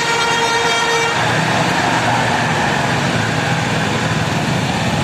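Bus telolet horn, an Indonesian musical bus horn, holding one note that cuts off about a second in, followed by steady engine and road noise.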